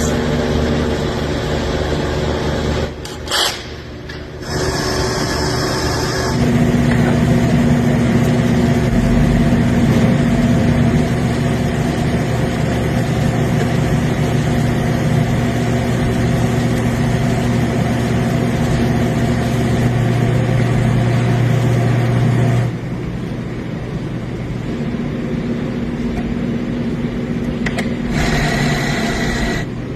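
Mercedes C300 V6 engine running steadily, with its level and pitch shifting abruptly a few times.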